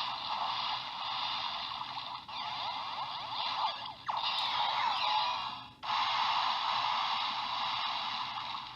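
Electronic sound effects from a Bandai WizarSwordGun toy, thin and tinny through its small built-in speaker. They play as several clips with short breaks about two, four and six seconds in.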